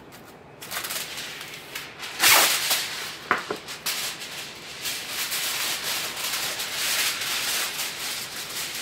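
Aluminium foil crinkling and rustling as a large sheet is handled, with a sharp louder crackle a couple of seconds in.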